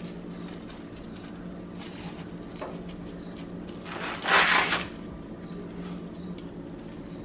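Plastic wrap rustling and crinkling as it is lifted and folded with the pastry, faint at first, then one loud crinkle lasting under a second about four seconds in, over a steady low hum.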